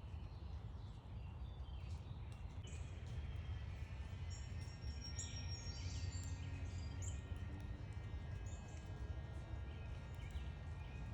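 Backyard songbirds chirping in short, high notes, busiest through the middle, over a steady low background rumble.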